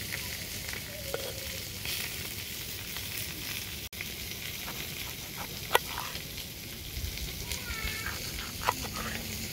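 Beef steak sizzling as it cooks in hot fat, a steady crackling hiss with a few sharp clicks.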